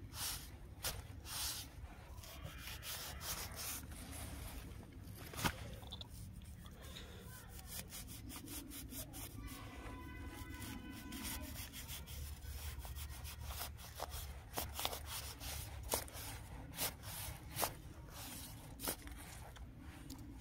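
Hand scraping and prodding dry, crumbly soil with a thin stick or blade, a steady scratchy rubbing broken by many short sharp clicks and taps, more of them in the second half.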